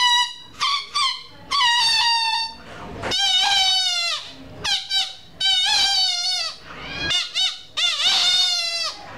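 A cut piece of popped rubber balloon, stretched between the fingers and blown through like a reed, squealing in a string of high, wavering wails that sound like a baby crying. Short squeaks alternate with longer wails of about a second that dip and rise in pitch.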